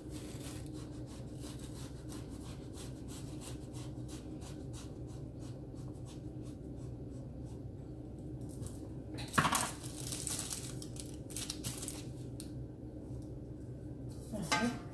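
Faint rustling and scraping as phyllo pastry sheets and a round metal baking tray are handled on a counter, over a steady low hum, with one sharper knock about nine seconds in.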